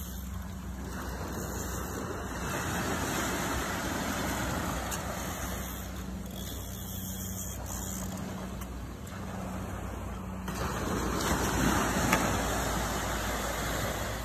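Ocean surf breaking and washing up the sand, swelling louder twice, over a steady low rumble.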